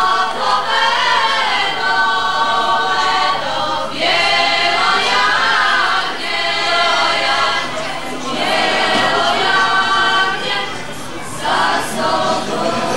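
Women's choir singing long held chords, phrase after phrase with brief breaks between them.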